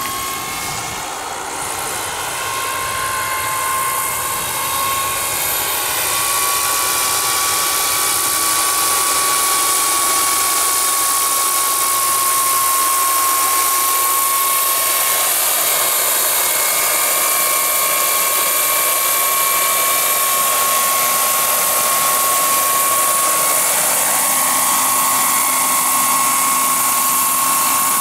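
Scale radio-controlled Sikorsky S-64 Skycrane model helicopter's small gas-turbine engine and rotors running in flight: a high, steady whine over a hissing rush, growing a little louder over the first several seconds.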